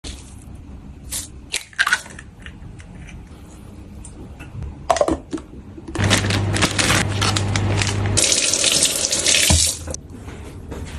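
Kitchen tap running into a sink for about four seconds, starting about six seconds in, with a low hum under the first half. Before it come scattered light clicks and knocks of things being handled.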